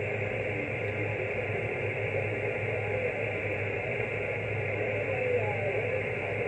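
Steady band-noise hiss from a Yaesu FT-901DM HF transceiver's receiver, tuned to 28.450 MHz on 10-metre sideband, with a low steady hum and faint wavering sounds under the hiss.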